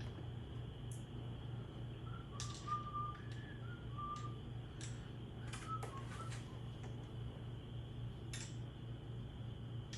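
A person whistling a few short, soft notes, twice, with scattered light metallic clicks from parts being handled over a steady background hum.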